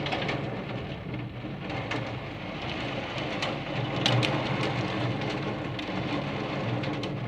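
Rain falling, with many separate drops clicking sharply on a nearby surface over a steady low hum.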